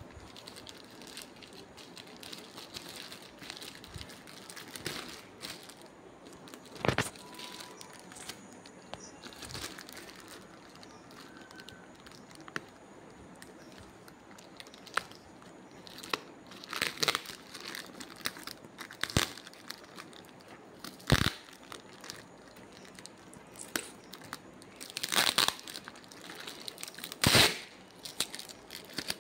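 A delivery parcel being unpacked by hand: packaging crinkling and rustling, with several sharp, louder tearing sounds spaced irregularly, the loudest near the end.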